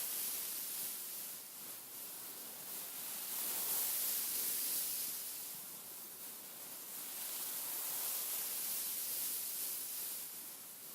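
Hands rubbing across a beaded pillow, giving a soft, high hissing rustle that swells and fades every few seconds.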